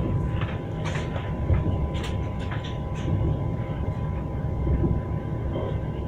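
Train wheels clacking over rail joints over a steady low rumble from the moving train, the sharp clacks coming mostly in the first half.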